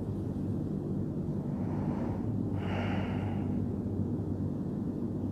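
Steady low hum in a quiet prayer hall, with one short breath or sniff about two and a half seconds in.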